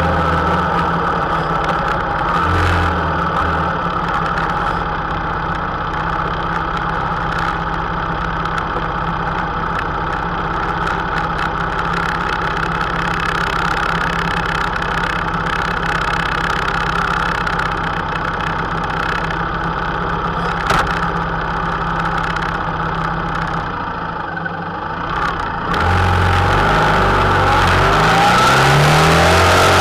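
Honda Interceptor 700's V4 engine idling steadily while stopped. About three-quarters of the way through it gets louder as the bike pulls away, its pitch rising as it accelerates.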